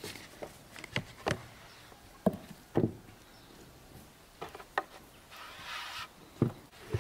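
Irregular knocks and clunks of objects being handled, about eight in all in pairs and singles, with a short hissing scrape or rush a little past halfway.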